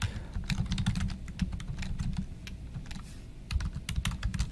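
Computer keyboard typing: a quick, irregular run of keystrokes, thinning out briefly about three seconds in before picking up again.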